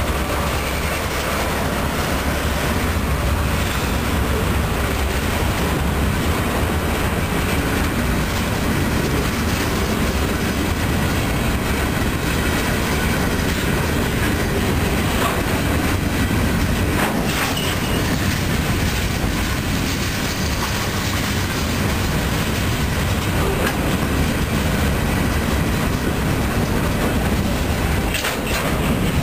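Freight cars rolling past over a grade crossing: a steady noise of steel wheels on the rails, with the clickety-clack of wheels crossing rail joints. A few sharper clacks come about two-thirds of the way through.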